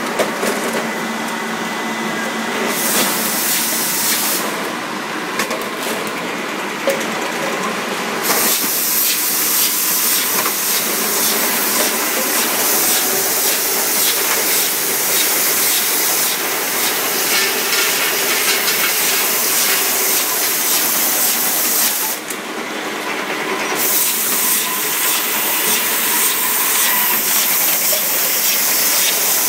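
PET water-bottling line running: a steady machine drone with a loud hiss that cuts out briefly a few times, over light ticking and clattering of bottles on the conveyor and rotary filler-capper.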